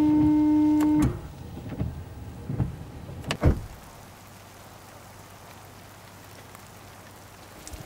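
Windshield washer pump whining steadily as it sprays fluid onto the windshield, cutting off about a second in. A few knocks from the newly fitted wiper blades follow. From about halfway through comes a soft, steady patter of rain on a surface.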